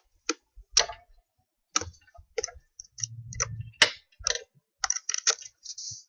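A dozen or so irregular plastic clicks and knocks as a USB programmer stick is handled and plugged into a laptop's USB port, with a short low rumble about three seconds in.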